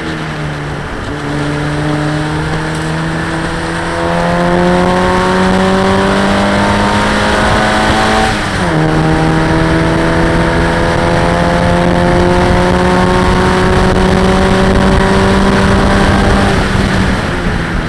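In-car sound of a Locost race car's engine at full racing load, with wind rush in the open cockpit. Its pitch falls at the start, climbs steadily for several seconds, drops sharply about eight and a half seconds in at a gear change, climbs again, and falls near the end as the driver lifts off.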